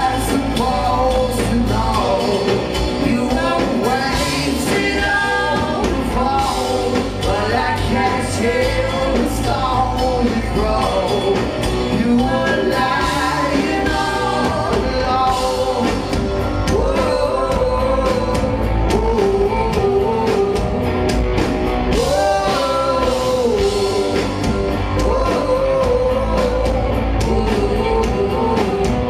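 Rock band playing live: electric guitar, bass guitar and drums under a sung lead vocal.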